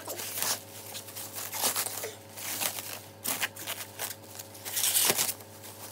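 Clear plastic packaging crinkling and rustling as it is handled and pulled open by hand, in irregular bursts, loudest a little before five seconds in.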